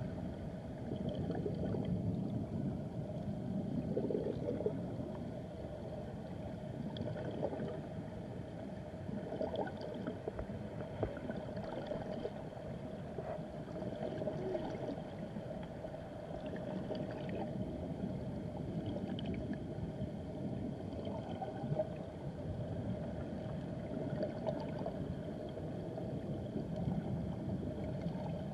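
River current recorded underwater: a steady, muffled rushing and gurgling of flowing water, with faint scattered clicks.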